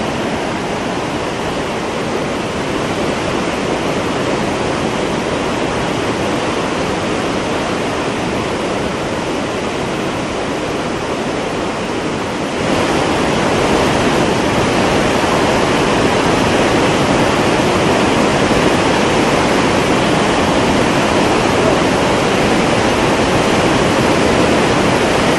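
Water released through the open crest gates of the Krishnaraja Sagar dam, rushing steadily; the sound gets louder about halfway through.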